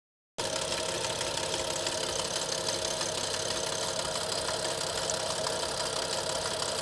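Audi S6 engine idling with a steady fast rattling from the timing case at the front of the engine, heard close up. It starts a moment in after a short silence. The owner says the rattle was faint from the start but became extremely loud after the car's first hard motorway run.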